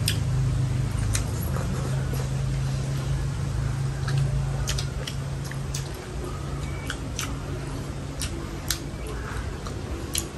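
Meal sounds: chopsticks and spoons clicking against bowls, with chewing, scattered light clicks throughout over a low steady hum that drops about six seconds in.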